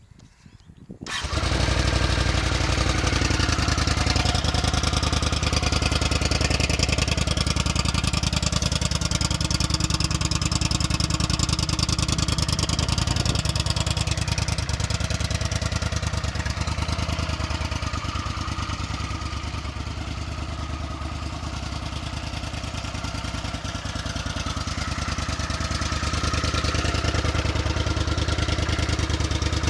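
Honda CX500C's water-cooled V-twin engine, running on open exhaust tubing, starts up about a second in and then runs steadily, dipping slightly in loudness past the middle and picking up again near the end.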